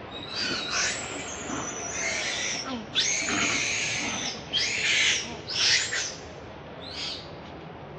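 Young macaque screaming in distress while an adult holds it back by the tail: a run of about six high, shrill screams, the longest lasting about a second and a half from about three seconds in.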